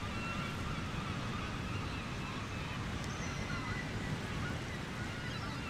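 Steady low rush of sea surf with faint bird calls over it, short and bending in pitch, a few of them near the end.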